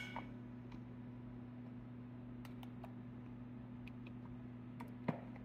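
Metal scoop clinking against the mixer bowl and cake pans as batter is scooped out: a sharp clink with a brief ring at the start, then scattered faint taps, one a little louder near the end, over a steady low hum.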